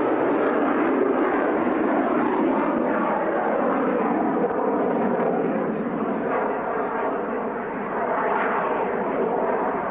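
De Havilland Sea Vixen's twin Rolls-Royce Avon turbojets, heard as a steady loud jet rush while the aircraft flies a display pass overhead. The sound dips slightly about eight seconds in.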